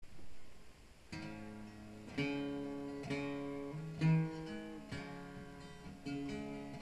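Acoustic guitar music: single plucked notes and chords about once a second, each ringing out and fading.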